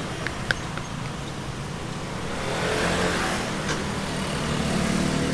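Steady low rumbling background noise of a busy street-food stall, swelling a little midway, with a few light clicks in the first second.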